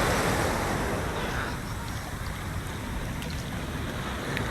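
Sea water washing and splashing around a person standing in the waves, with wind rushing on the microphone; a little louder for the first second and a half.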